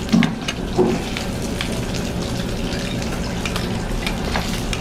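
Pork belly sizzling on an electric grill pan: a steady hiss with many small scattered crackling pops.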